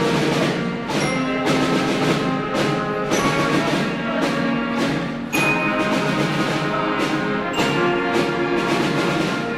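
School concert band playing a piece: trumpets, saxophones and trombones holding sustained notes over a steady beat.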